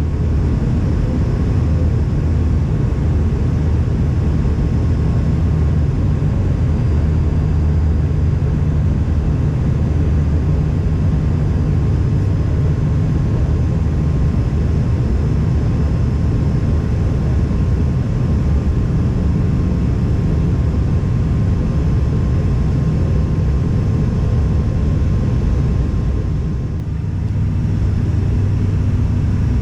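ATR 72 turboprop airliner cabin noise in flight: a steady, loud propeller and engine drone with a low hum and faint steady whines above it. The level dips briefly about 27 seconds in.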